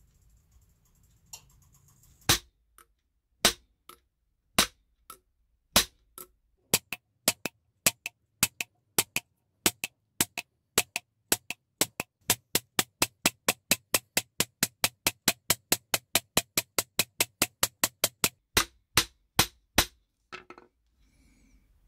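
Self-made texture hammer striking a silver strip on a steel bench block, stamping a pattern into the metal. A few slow single blows, then a steady run of quick blows about two or three a second, ending with a few harder blows and stopping about twenty seconds in.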